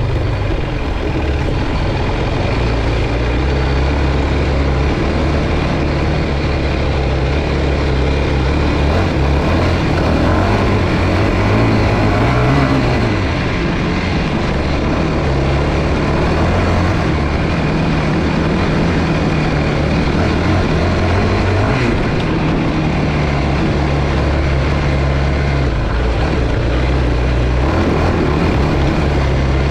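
Yamaha YFZ450 sport quad's single-cylinder four-stroke engine running under way on a dirt trail, its note rising and falling with the throttle several times.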